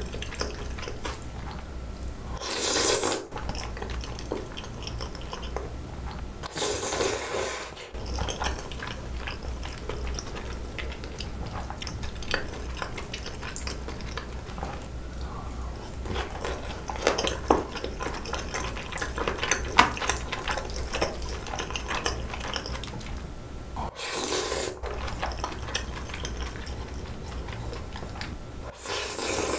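Close-up eating sounds of spicy bibim noodles and boiled pork belly. There are four short loud slurps of noodles, with wet chewing and chopsticks clicking against the bowls in between, and a low steady hum underneath.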